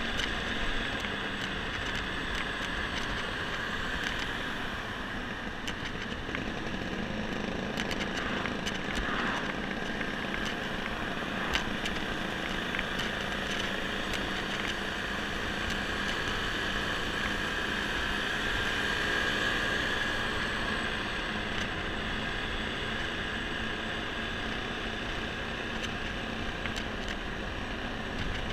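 Small Honda scooter's engine running steadily at cruising speed, heard from the handlebars over wind and road noise.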